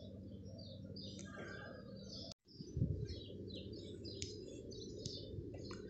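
Small birds chirping faintly, many short high chirps in quick succession, over a steady low background hum. The sound cuts out completely for a moment a little past two seconds in.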